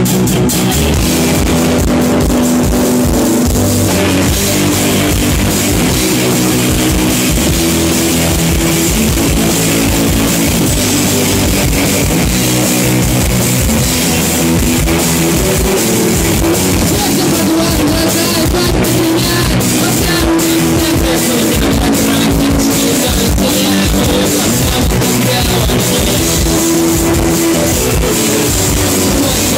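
Live rock band playing loudly: electric guitar over a drum kit, with a steady beat throughout.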